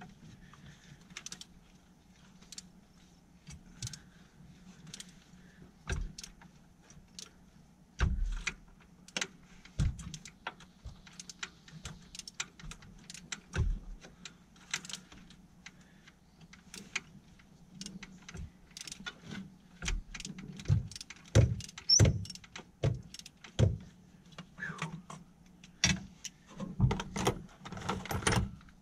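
Hands and metal hand tools working among the spark plug wires in a Ford 4.6 V8 engine bay: irregular clicks, clinks and knocks, growing denser and louder in the last several seconds, over a faint steady low hum.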